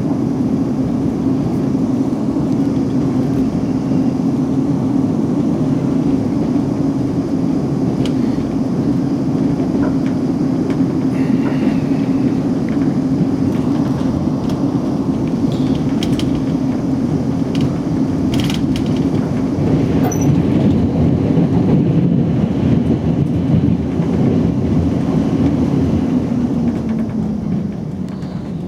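South Western Railway Class 458 electric multiple unit heard from inside the carriage while running: a steady rumble of wheels on rail with a droning tone that sinks in pitch near the end, and scattered short clicks.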